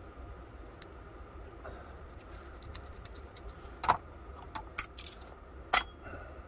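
Small metal clicks and taps of a screwdriver and locking pliers against the lock parts of an antique percussion pistol: a few scattered clicks, a cluster about two thirds of the way in, and the loudest near the end.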